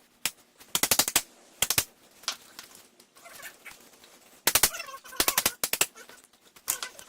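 Hammer blows ringing on steel, hammering to break a stuck suspension part loose, in quick clusters of several strikes separated by short pauses.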